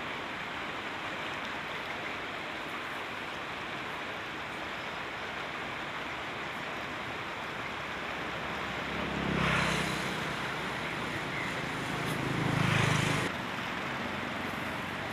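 Steady rushing of a fast-flowing river. Two louder swells of noise come through, about nine and twelve seconds in, and the second cuts off suddenly.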